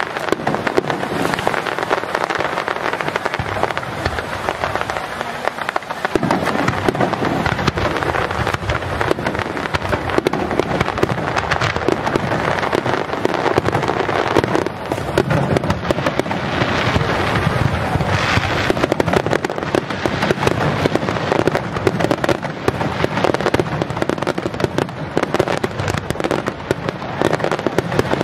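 Fireworks display: aerial shells bursting in a dense, unbroken barrage of bangs and crackle, growing fuller and deeper from about six seconds in.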